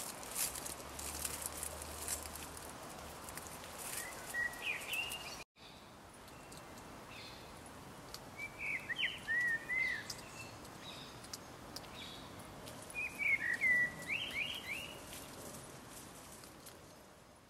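A small songbird singing short phrases of quick, curving chirps three times, over a steady outdoor background hiss, with faint ticking and rustling in the first few seconds. The sound cuts out abruptly for a moment about five and a half seconds in.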